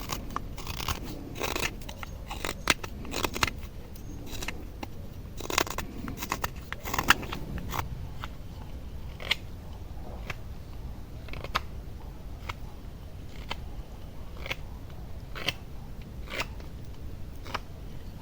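Knife carving wood: short cutting and scraping strokes, irregular and quick at first, then about one stroke a second in the second half.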